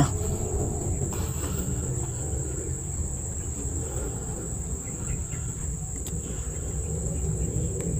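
Insects shrilling in one steady high-pitched tone, over a continuous low rumble.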